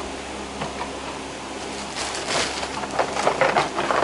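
Steady low hum of room tone. About halfway through comes a run of irregular crinkling and rustling, which is toy-car packaging being handled.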